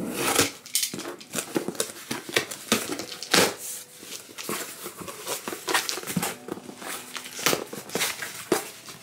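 Cardboard shipping box being opened and unpacked by hand: a run of rustles, scrapes and crinkles as the flaps are pulled and an inner box is lifted out, with one louder rasp about three and a half seconds in.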